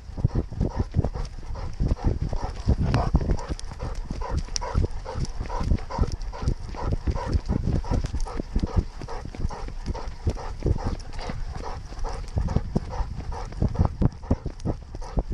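Quick, rhythmic footfalls and thudding of a weimaraner running, heard through a camera carried on the dog and jostled by each stride.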